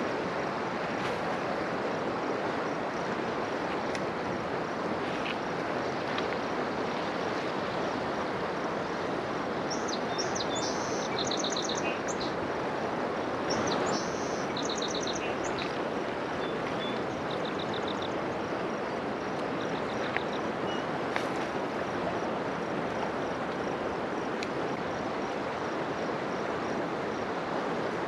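Steady rush of a fast-flowing river. Partway through, a songbird sings several quick, high trilled phrases.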